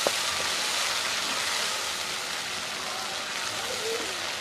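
Lamtoro (leucaena) seeds frying with spices in oil in a wok, a steady sizzle, with a single click right at the start.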